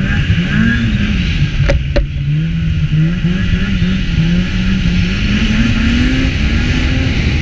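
Snowmobile engine running, its pitch rising and falling, with two sharp clicks about two seconds in.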